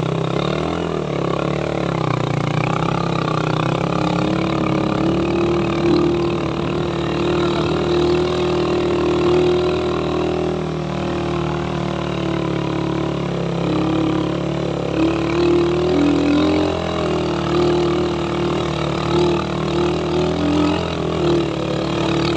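Suzuki Raider 150 motorcycle's single-cylinder engine running steadily under way, its pitch drifting up and down a little with the throttle.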